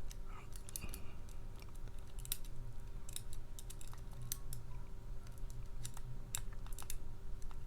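Small, irregular metallic clicks and scrapes of a dimple lock pick and tension tool working the pins inside a stainless-steel dimple padlock, over a faint steady hum.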